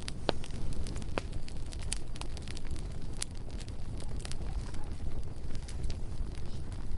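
Bonfire burning, with a steady low rush and frequent crackles and pops. Two sharper pops come about a third of a second and just over a second in.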